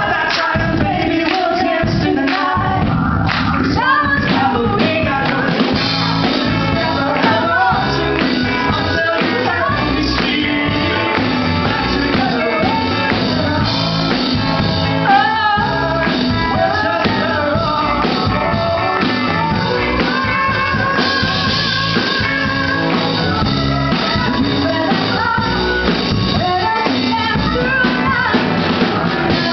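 Live rock band playing a pop duet: a woman and a man singing over electric guitar, bass and drum kit.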